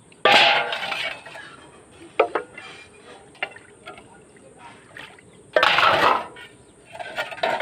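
Steel dishes being washed by hand: plates and a large steel pan clinking and scraping against each other, with two louder bursts of scrubbing and water about a third of a second in and again near six seconds.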